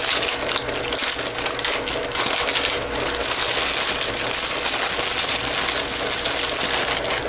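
Thin plastic wrapper of a crispbread sleeve crinkling and crackling continuously as it is handled and opened.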